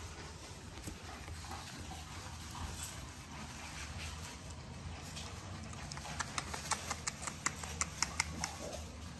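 A litter of American bully puppies moving about and scuffling in wood shavings inside a wire pen, with a quick run of sharp clicks, about six a second, starting about six seconds in.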